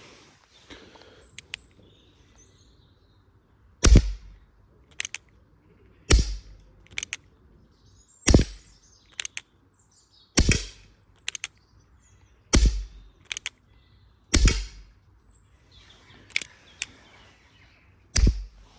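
A CO2 pellet revolver firing shot after shot, seven sharp reports roughly two seconds apart. Each is followed about a second later by fainter short clicks.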